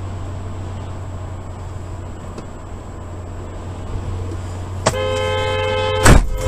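Steady low hum of a car driving, then about five seconds in a car horn blares and is held. A loud thump, the loudest sound of all, breaks into it just after six seconds, and the horn then sounds again.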